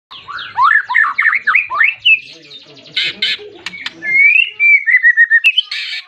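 White-rumped shama in full song, calling insistently as if at a rival. It opens with a quick run of rising whistled notes, then gives harsh rasping notes, a long falling whistle that breaks into rapid repeated notes, and another harsh burst near the end.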